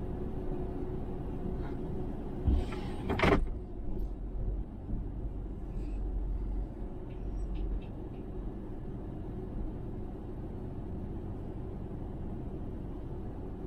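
Cargo van idling with a steady low rumble. About two and a half seconds in a door shuts, first a knock and then a louder slam.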